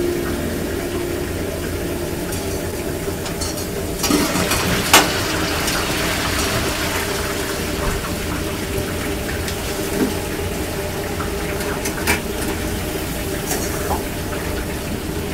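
Steady sizzle and hum of a food-trailer kitchen's griddle and deep fryer, broken by a few sharp knocks and clatters of utensils, the loudest about five seconds in.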